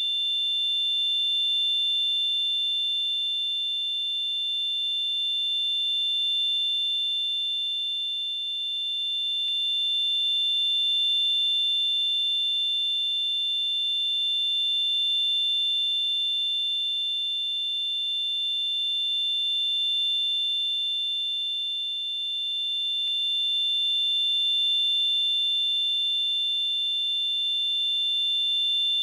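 Tinnitus sound effect: two steady high-pitched ringing tones close together, with a fainter high hiss above them. The whole sound swells and eases slightly every few seconds.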